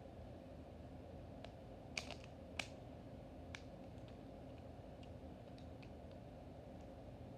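Scattered light plastic clicks and taps of Beyblade parts being handled, the loudest few about two seconds in, over a faint steady hum.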